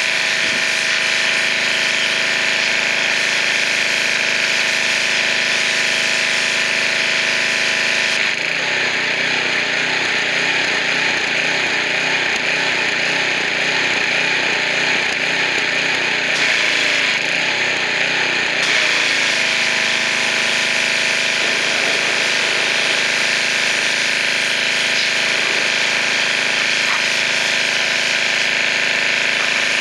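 Pressure washer running steadily: its motor and pump hum under the hiss of the water jet. From about 8 to 19 seconds in, the sound turns rougher and choppier as the spray works the surface.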